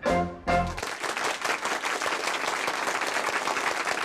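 A live soul band ends on a couple of short chords, then from about a second in a crowd claps and applauds.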